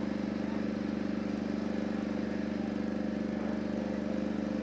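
An engine running steadily at idle, a low hum with a fast, even pulse that holds one pitch throughout.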